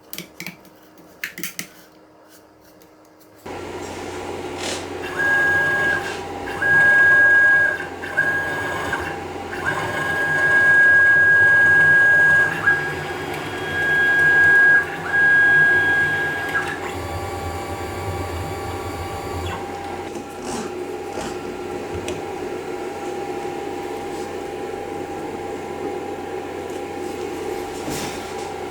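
A few light clicks, then a desktop CNC mill starts up with a steady hum about three and a half seconds in. Its stepper motors whine in a string of high-pitched spurts, one to two seconds each, as the axes move. After that only the steady hum goes on.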